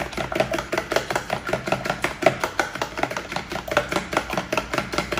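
A fork beating eggs into soy sauce in a clear plastic container, tapping against its sides in quick, even strokes.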